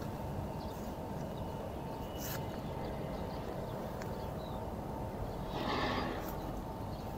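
Steady rain-soaked street ambience with a walker's footsteps on wet ground, a few light clicks, and a brief louder noise about six seconds in.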